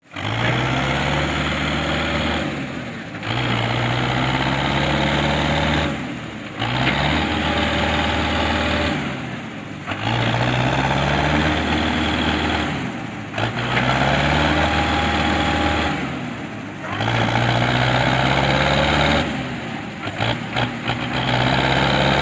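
Belarus 510 tractor's four-cylinder diesel engine revving hard while labouring against a heavily loaded sugarcane trolley. It comes in repeated surges of about three seconds, each broken by a brief dip in revs.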